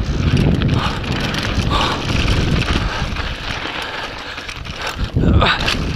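Mountain bike rolling fast down a rocky dirt trail: tyres crunching over rock and sand, the bike rattling, and wind buffeting the microphone. The noise swells briefly about five seconds in.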